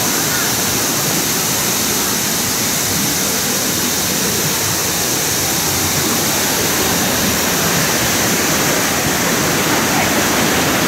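Thi Lo Su waterfall: a steady, loud rush of falling water that does not change.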